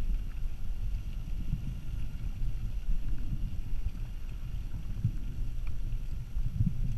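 Muffled underwater rumble of water moving against a GoPro camera's housing, with a few faint clicks.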